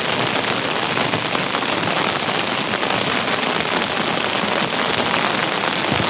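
Heavy rain falling steadily, a dense even hiss of many drops pattering on a surface.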